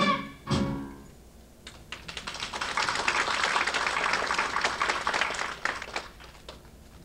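A small audience clapping for about four seconds, thinning out near the end, after the last sung note cuts off and a short loud hit sounds about half a second in.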